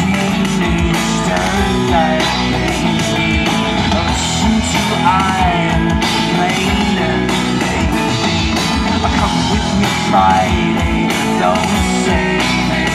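Live rock band playing through a PA: electric guitars and a drum kit, with a wavering lead melody over the chords.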